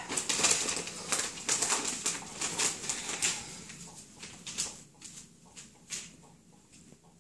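Newspaper crinkling and rustling as puppies nose and tug at it, in a dense run of crackles that thins out after about four seconds.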